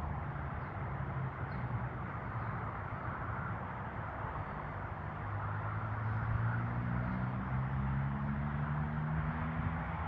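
Low engine hum from a motor vehicle, growing somewhat louder through the second half, over a steady outdoor rushing noise.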